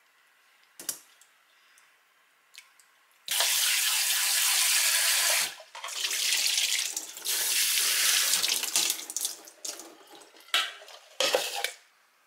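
Kitchen tap running into a sink, turned on suddenly about three seconds in and off about two seconds later, then uneven splashing as raw oysters and their rinse water are poured through a stainless mesh strainer, with two short splashes near the end.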